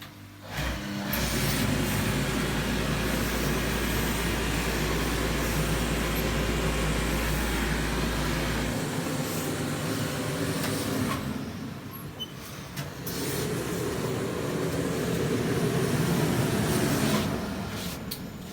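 Industrial sewing machine running at speed in two long stretches, with a short drop in between.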